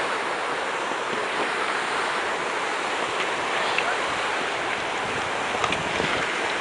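Steady rushing of a shallow river's flowing water, with a few faint ticks.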